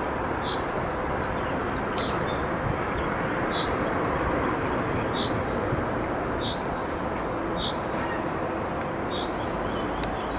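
A small bird repeating a short high chirp about once a second, over a steady rushing background noise.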